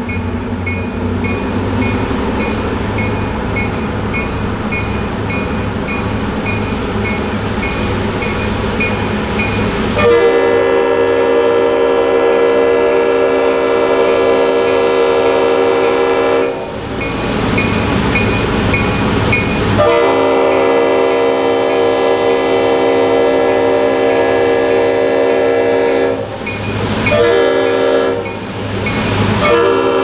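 Two GP11 diesel locomotives rumbling as they approach, then the lead unit's Leslie RS5T five-chime air horn sounding the grade-crossing signal over the engines: two long blasts, a short one, and a final long blast starting just before the end.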